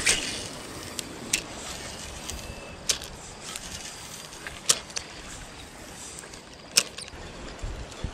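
Steady rush of a flowing stream with wind noise, broken by about half a dozen sharp clicks and knocks as a spinning reel and lure are handled.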